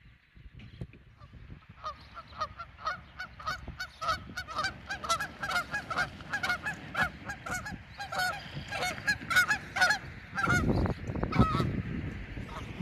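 A pair of Canada geese honking over and over, several calls a second, as they take off and fly. Near the end a loud, low rushing noise takes over.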